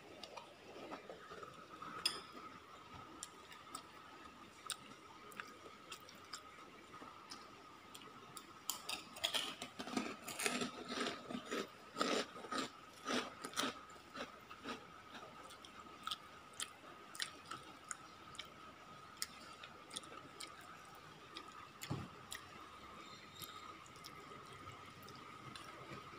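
Close-up chewing of a mouthful of rice and shredded vegetables, thickest about ten seconds in, with scattered light clicks of a metal spoon against a ceramic bowl. A faint steady high tone sounds underneath.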